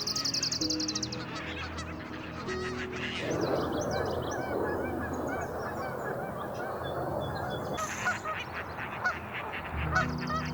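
Many marsh birds calling, a dense chatter of short calls for several seconds in the middle, with a fast high trill near the start. Soft background music notes run underneath.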